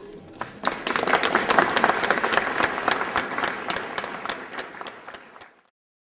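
Audience applauding, a dense patter of many hands clapping that starts about half a second in and cuts off suddenly near the end.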